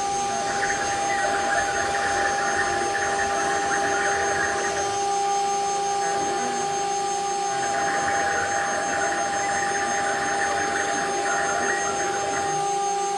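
A 4-axis, four-spindle CNC router's spindles running with a steady high whine while the bits carve wood. A rougher cutting noise swells twice, from about half a second to five seconds in and again from about eight to twelve seconds in.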